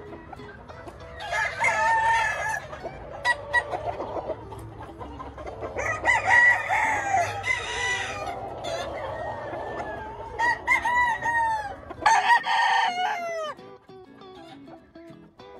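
Roosters crowing in turn, several long calls one after another, with hens and roosters clucking between them.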